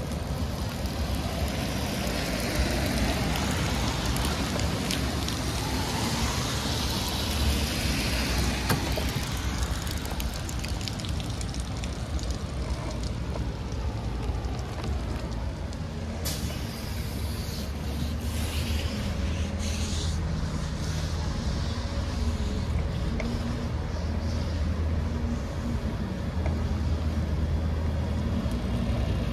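Traffic on a wet city street: tyre hiss from a vehicle passing on the wet road in the first third, then a heavy vehicle's engine running low, with a sudden air-brake hiss a little past halfway.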